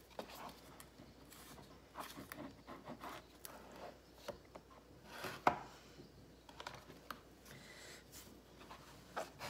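A turnover dough press and dough being handled on a work surface: scattered light knocks and rubbing, with one sharper knock about five and a half seconds in.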